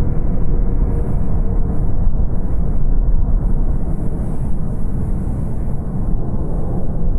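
Boeing 777-300 jet engines on landing approach: a steady deep rumble, easing slightly as the airliner moves away toward touchdown.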